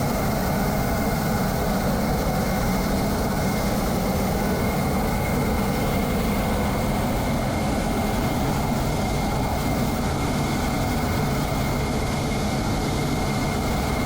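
Jet aircraft engine running steadily, a constant rushing noise with a thin high whine held on one note.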